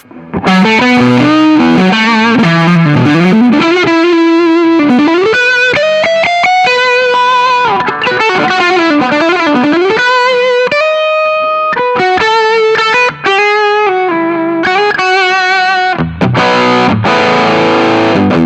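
Electric guitar played through a T-Rex Mudhoney overdrive pedal, giving a distorted, higher-gain tone. It plays single-note lines with bent and wavering notes, then switches to fuller chords about sixteen seconds in.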